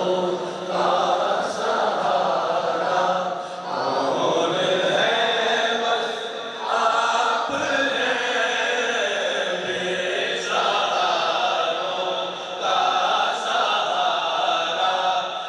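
Male voices chanting an Urdu naat in long, held sung phrases with short breaks between them.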